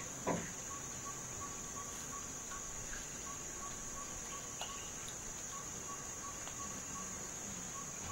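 Insects droning: a steady high-pitched buzz with a faint chirp repeating about four times a second. About a third of a second in, a short sound falls quickly in pitch, the loudest moment.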